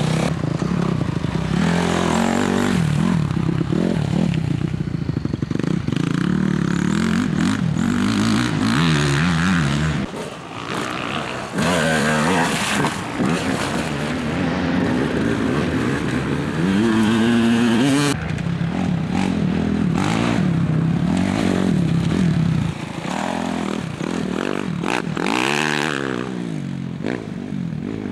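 Dirt bike engines revving and easing off over and over, the pitch rising and falling as they are ridden. The sound changes abruptly several times as different bikes are heard.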